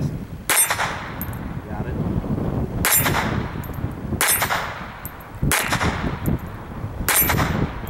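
Five shots from an Astra Cub .22 Short pocket pistol, fired one at a time about one and a half to two and a half seconds apart. Some are followed by the clang of a steel target being hit.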